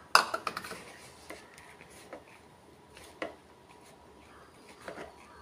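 Hand mixing crumbly rava and grated coconut in a plastic bowl: soft rubbing and crumbling, with a sharp knock about a quarter second in and a few fainter clicks after.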